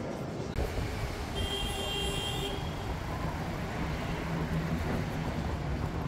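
City street ambience: a steady low traffic rumble, with a brief high-pitched squeal lasting about a second, beginning about a second and a half in.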